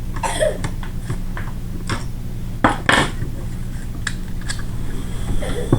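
Small metal parts and tools clicking and clinking against each other and the bench, a few separate knocks, while a pistol-grip screw and lock washer are handled and worked in. A steady low hum runs underneath.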